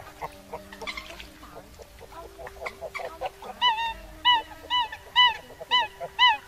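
Eurasian coots calling: faint calls and clicks at first, then a run of about six loud, short, sharp calls, roughly two a second, each with a slight downward bend in pitch. These are flock calls of the coot.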